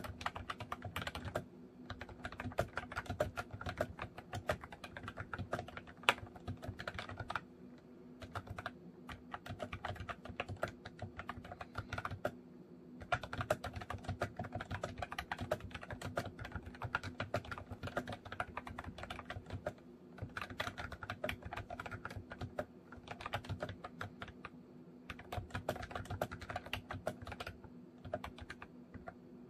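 Continuous typing on a MOFii Retro Style Candy keyboard: a dense run of quick key clicks, broken by short pauses every few seconds, over a faint steady hum.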